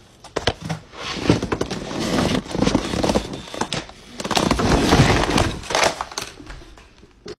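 Clattering, scuffling and thumping of a startled person bolting away in a panic, with no scream, loudest from about a second in until near the end.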